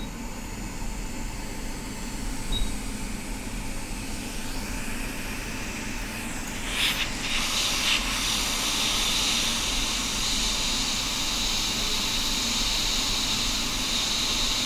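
Quick 861DW hot-air rework station blowing on a phone logic board to heat and lift the touch IC: a steady hiss of air from the nozzle that gets louder and fuller about seven seconds in. Two very short beeps come near the start and about two and a half seconds in.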